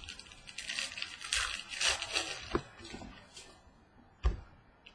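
Trading cards being handled: a stretch of rustling and sliding, then a few light taps as cards are set down.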